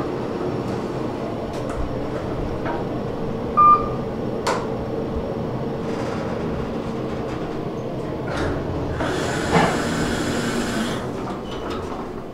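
KONE traction passenger elevator car travelling, with a steady hum throughout. A short electronic chime sounds a few seconds in, and near the end the car doors slide open with a brief rushing sound.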